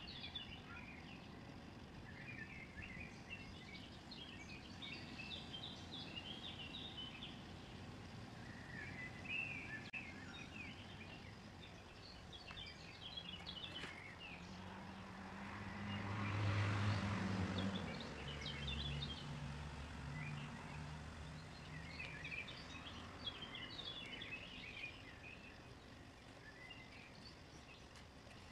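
Small birds chirping and singing on and off, with a motor vehicle passing on a nearby road about halfway through, its sound swelling and fading and a low engine hum lingering a few seconds after.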